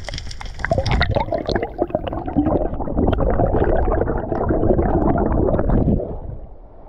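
Air bubbles gurgling and popping around an underwater camera as a freediver rises toward the surface, a dense bubbling that fades just before the end.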